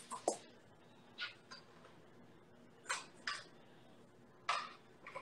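Faint, scattered clicks and knocks of a new electric hand mixer and its attachments being handled, several separate taps over a few seconds with quiet between them.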